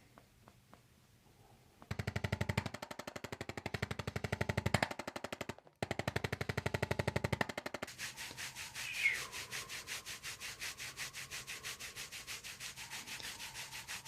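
Handheld percussive massage or adjusting tool pulsing rapidly against the back and trapezius muscle, about ten strokes a second. It comes in two loud runs with a brief break between them, then carries on more quietly from about eight seconds in.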